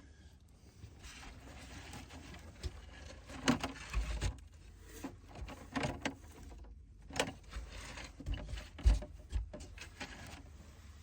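Rustling with scattered clicks and knocks and a few dull thumps, the loudest about four and nine seconds in: a person shifting about and handling materials while lying in a cramped crawl space.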